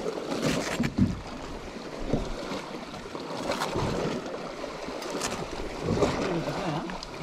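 Water lapping against the hull of a small drifting boat, with a few sharp clicks and knocks as a slow-jigging rod and reel are worked.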